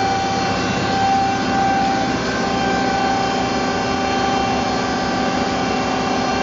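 Burgmeister Powerhawk CNC mill running with a steady hum and whine made of several constant tones, while its X axis is jogged from the control panel.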